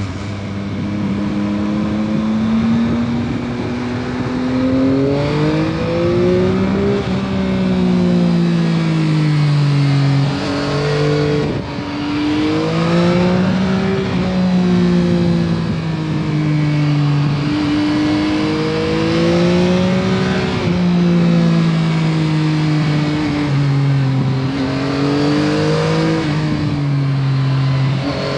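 Yamaha MT-09 SP's 890 cc inline-three engine with its stock exhaust, heard while riding. The revs climb and fall again and again, with a few sudden drops in pitch.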